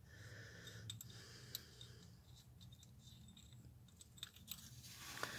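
Near silence with a few faint, irregularly spaced metallic clicks of hand tools and small metal parts being handled as the modulator's 13 mm bracket bolt comes out.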